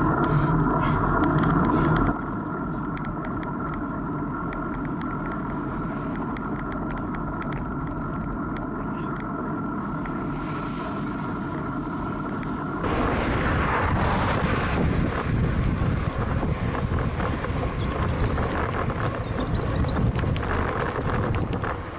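Wind and road noise picked up by a camera on a moving bicycle, with a steady hum underneath in the first part. The sound changes abruptly about two seconds in and again just past halfway, where it becomes a louder rushing of wind on the microphone.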